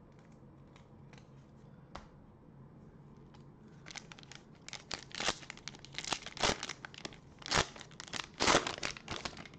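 Plastic wrapper of a Panini Prizm basketball cello pack being torn open and crinkled by gloved hands. A few faint clicks at first, then from about halfway through a quick run of sharp crackling and tearing strokes.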